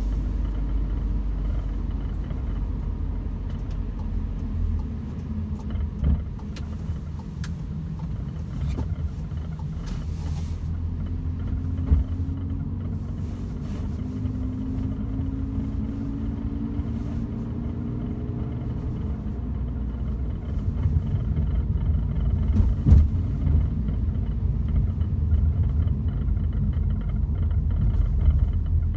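Volkswagen Golf GTI Mk7 being driven, heard from inside: a steady low road and engine rumble, with the engine note rising in pitch a few times midway. A few short, sharp clicks stand out, the kind of rattle the car is being recorded for.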